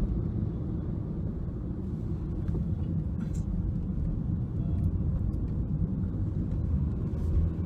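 Steady low rumble of a moving car heard from inside the cabin: engine and road noise while driving.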